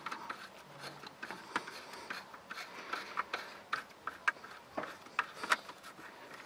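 Irregular light clicks and rubbing from hands working the cargo-net cassette and its fittings loose in a Volvo V70 luggage compartment.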